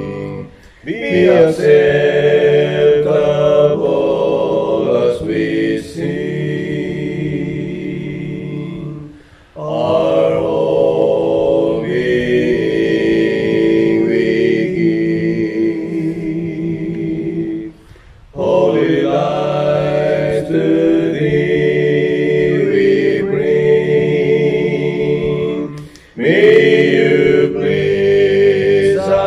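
One man's voice layered into several parts, singing a slow hymn in harmony with long held notes. Four phrases of about eight seconds each, with short breath breaks between them.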